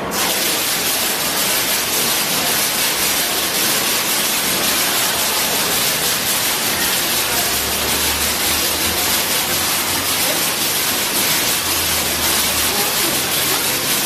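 Digital water curtain releasing water through a row of valves: patterned sheets of water fall and splash into the basin below with a steady rushing hiss.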